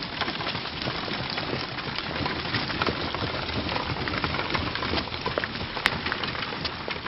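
Added street ambience of horse-drawn carts on cobblestones: wheels rattling and hooves clattering as a dense, irregular crackle of small clicks, with one sharper click about six seconds in.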